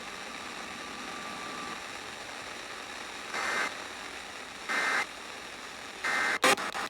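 Weather radio static hiss, then three short, evenly spaced EAS data bursts, typical of the end-of-message code that closes a weather alert, followed near the end by loud crackles.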